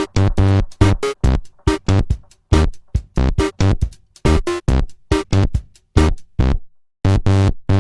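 Electronic dance music with a steady, hard drum-machine beat and synth tones; the track cuts out for a moment near the end, then the beat comes back.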